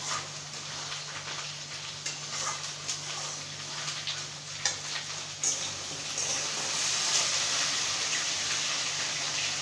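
Wet spice masala sizzling in an aluminium kadai while a spatula stirs and scrapes through it, with a few sharp knocks of the spatula on the pan. The sizzle grows louder about six seconds in, over a low steady hum.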